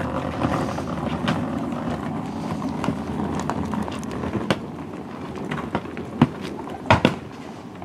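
Luggage being unloaded from a coach's luggage hold: bags rolling and scraping over asphalt, with scattered knocks and clicks. The sharpest knocks come in the second half.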